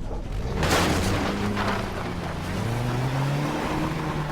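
A car engine running and revving up, its pitch rising steadily through the second half. A loud crashing burst comes about a second in.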